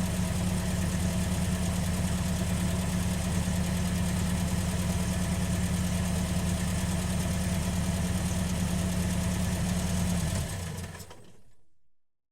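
Car engine idling steadily, heard from outside the car. Near the end it is switched off and dies away to silence.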